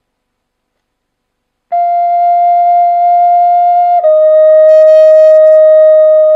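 A redwood flute begins a little under two seconds in, playing a clear, steady held note and then stepping down to a lower held note, which it sustains.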